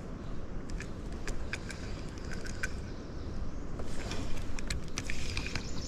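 Light spinning reel, an Abu Garcia Max X, being cranked to retrieve a beetle spin lure, giving scattered sharp clicks that come faster after about four seconds, over a steady low rumble.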